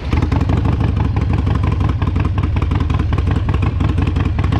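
Motorcycle engine running steadily, a loud, rapid pulsing exhaust beat with a deep low rumble.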